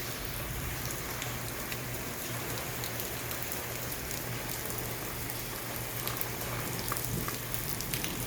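Heavy rain falling steadily in a thunderstorm, a dense even hiss with many sharp ticks of individual drops striking nearby surfaces.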